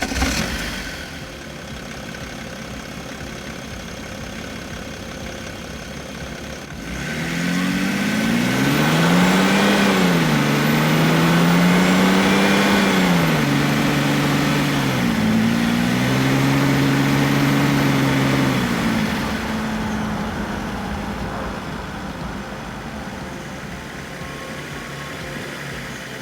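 BMW 530d E60's 3.0-litre straight-six turbodiesel fires up and settles to a steady diesel idle for several seconds. It then accelerates: the engine note climbs, drops back once as if shifting up, climbs again and holds, before easing off to a steady lower note that dies away near the end.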